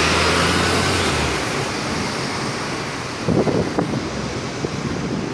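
Diesel city bus pulling away and passing close by, its low engine hum and road noise fading after the first second or so as it moves off into the street traffic. A few brief, louder sounds come a little over three seconds in.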